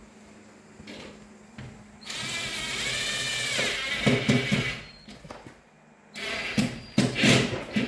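Cordless drill/driver driving screws through a metal channel into a plastic wall panel. The motor whines steadily for about a second and a half and drops in pitch, then gives a few sharp knocks. A second, shorter run with knocks comes near the end.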